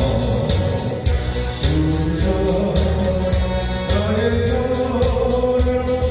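Polka-style Korean pop song playing: a sung melody of held notes over a backing track with a steady beat.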